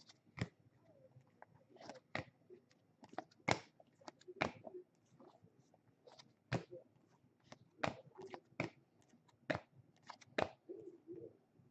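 Baseball trading cards being handled and sorted by hand: a string of sharp, irregular clicks and snaps, roughly one a second, as cards are flicked through and set down, with faint rustling in between.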